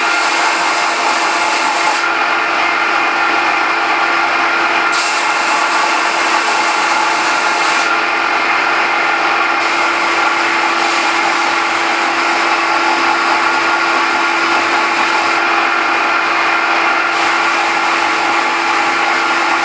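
Benchtop belt-and-disc sander running with a steady motor hum while small whitewood blocks are pressed onto the sanding belt. The gritty hiss of wood on the abrasive belt comes and goes about four times as pieces are put on and lifted off.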